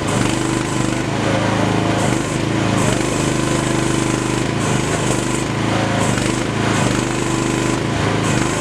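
Miva VA08 mini excavator's engine running steadily with a fast, even pulse, its pitch shifting slightly a few times.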